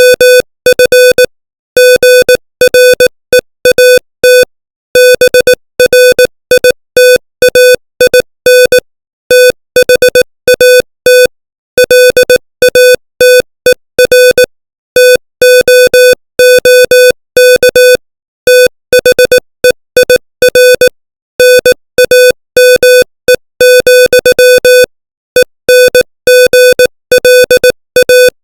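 Morse code sent at 18 words per minute, spelling out English text: a single-pitch electronic beep keyed on and off in short dots and longer dashes, with brief gaps between letters and longer ones between words.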